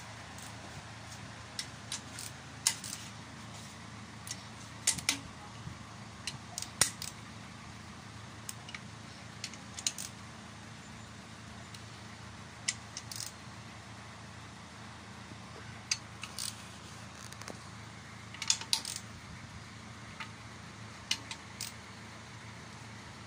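Irregular sharp metallic clicks and clinks of a socket wrench and bolts being handled against an aluminium engine block, some coming in quick clusters, over a steady low hum.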